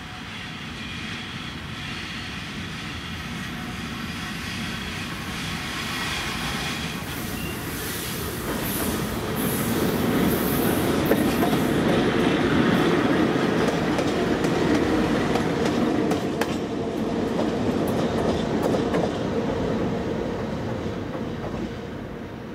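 VL10 two-section Soviet electric locomotive passing close on the rails. It approaches with a high ringing from the rails and wheels, grows into a loud rumble of wheels as it goes by, with a few sharp clicks over the rail joints, then fades away.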